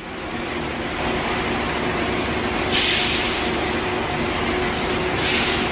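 Monorail train running, a steady rumble with a faint hum, broken twice by short bursts of hiss about three and five seconds in.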